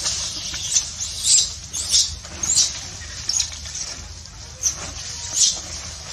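Dry leaf litter crackling and rustling in short, sharp bursts, several a second apart, as a macaque rummages through it with its hands, foraging.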